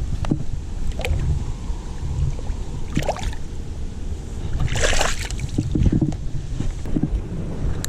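Wind buffeting the microphone at the water's edge, a steady low rumble, with a brief rush of noise about five seconds in.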